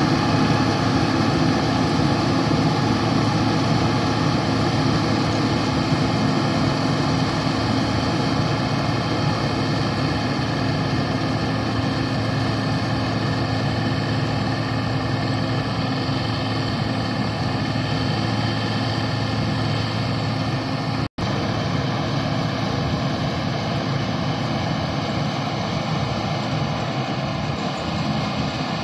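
An 8070 combine harvester working in a rice field, its engine and threshing machinery giving a steady drone with a constant hum, slowly growing fainter as it moves away. The sound breaks off for an instant about two-thirds of the way through.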